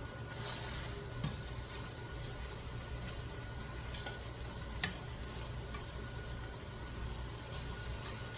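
Chicken sizzling as it fries in a hot pan over a steady low hum, with a few clicks of a utensil against the pan, the sharpest about five seconds in.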